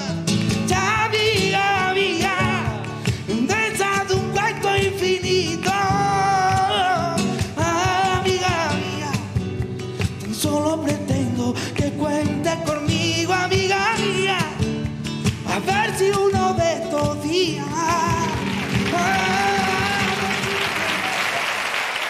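A male singer holding long, ornamented flamenco-style notes over two Spanish acoustic guitars. Audience applause swells in near the end under the last sung notes.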